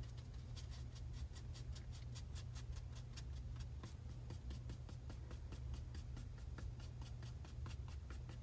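Mop brush dabbing acrylic paint onto a canvas panel: a long run of light taps, about four or five a second, over a faint steady low hum.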